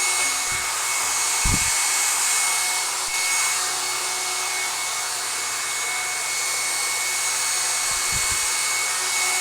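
Panasonic EH-NA65-K nanoe hairdryer running steadily: a constant rush of air with a thin high whine, broken by a few soft low thumps about a second and a half in and near the end.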